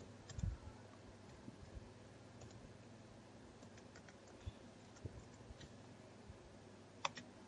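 Faint, sparse computer keyboard keystrokes from typing, with a sharper pair of clicks near the end over a quiet room tone.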